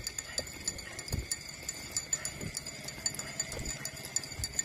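Puppy suckling at its mother's teat: rapid wet clicking and smacking of its mouth on the nipple, with a few soft low thuds about a second apart.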